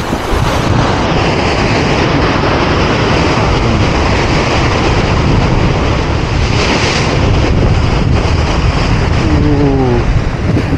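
Sea swell surging and breaking against a rocky ledge just below the microphone: a continuous heavy wash of foaming surf mixed with wind on the microphone, with a louder crash of spray about seven seconds in.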